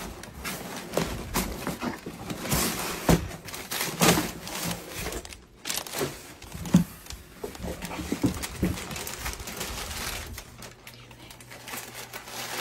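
White wrapping paper rustling and crinkling as a hat is lifted from a cardboard box and unwrapped by hand, with irregular crackles and the odd scrape or knock of the cardboard.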